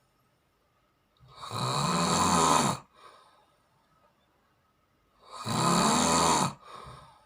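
Snoring: two loud snores about four seconds apart, each lasting about a second and a half and followed by a short, fainter breath.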